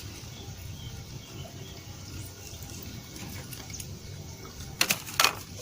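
Low steady background rumble with faint scattered ticks, then two or three sharp clicks close together near the end.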